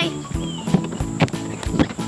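Background music with held notes and a steady, clip-clop-like beat.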